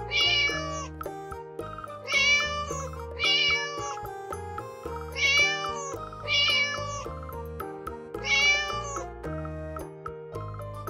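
Six cat meows, each under a second long with a pitch that rises and falls, over steady background music.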